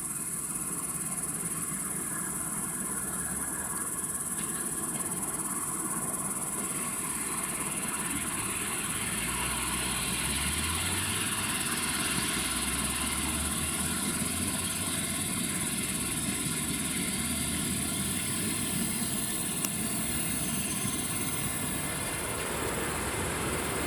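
Suburban electric multiple-unit train approaching on the rails: a low rumble that builds gradually from about a third of the way in as the train draws near.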